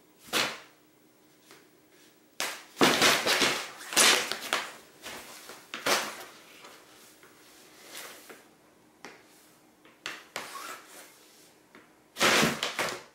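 Fabric pop-up cat tunnel rustling and thumping in irregular bursts as a cat swats and scrambles inside it at a wand toy. A long flurry comes about two and a half seconds in, with shorter scuffles later and another brief one near the end.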